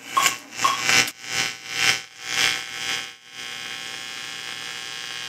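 Electronic logo-sting sound effects: two short pinging tones in the first second, then a run of swelling whooshes about twice a second, settling into a steady buzzing hum.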